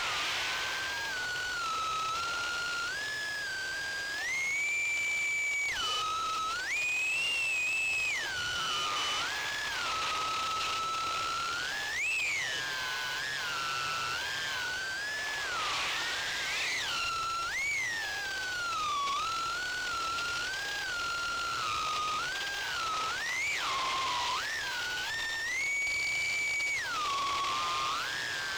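2-inch FPV quadcopter's four 1105 7500KV brushless motors and four-blade 2-inch propellers whining in flight. The pitch rises and falls constantly with throttle, stepping up several times to hold a higher note for a second or two before dropping back.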